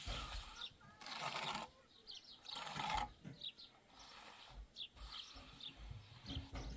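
Birds chirping, short high falling notes several times, over a few half-second bursts of scraping noise, the loudest sounds, and some dull thumps.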